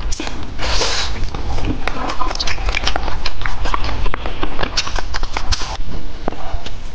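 Close-miked eating sounds: wet mouth clicks and chewing as sliced ham is eaten off a skewer, with a breathy hiss about a second in.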